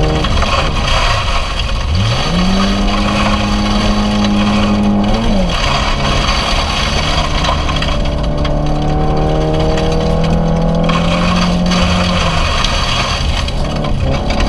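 Rally car engine heard from inside the cabin on a gravel stage. The revs climb sharply about two seconds in, hold, and drop near five seconds at a gear change, then pull steadily higher again until easing off about twelve seconds in. A steady rush of tyre and gravel noise runs underneath.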